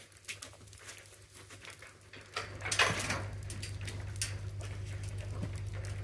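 Footsteps and scuffing over snowy, straw-covered farmyard ground, with a loud scrape about three seconds in. A steady low hum comes in a little before it and continues.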